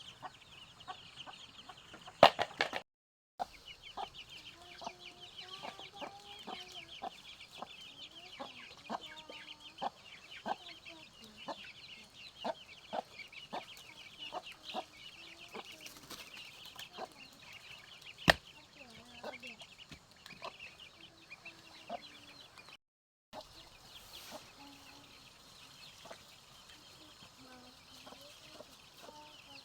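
Chickens clucking, over a dense high chittering and scattered small clicks. Two sharp knocks stand out, about 2 seconds in and again near the middle, and the sound cuts out briefly twice.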